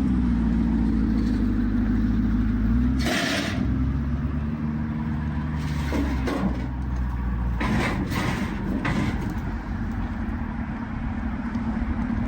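A vehicle engine running slowly at low revs, its pitch shifting about three seconds in, with short rushing bursts of noise around three, eight and nine seconds in.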